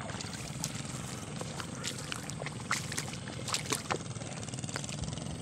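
Footsteps wading through the flooded rice paddy's mud and water: irregular short splashes and squelches over a steady low rumble.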